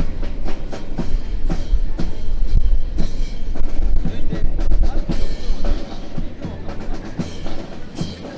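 Drill team's rifle drill: irregular sharp clacks of rifles slapped and caught and boots striking the ground, over heavy wind rumble on the microphone.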